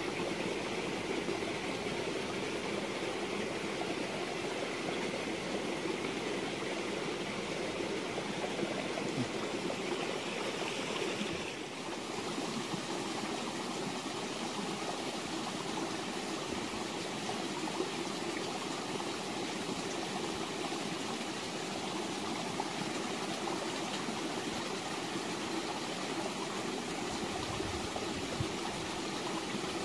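Steady rush of running water, dipping slightly and changing a little about twelve seconds in.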